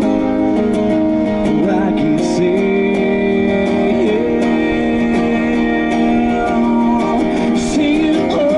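Busker's guitar music played live through a small portable amplifier, with held notes running on without a break.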